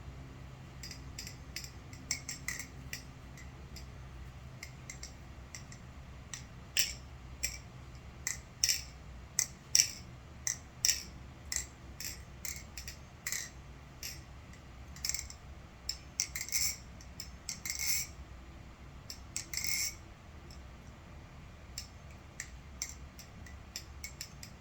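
Titanium NRB SLight butterfly knife being flipped: irregular sharp metallic clicks and clacks as the handles swing round and strike each other and the blade, coming in quick runs, some with a very faint ring from the handles.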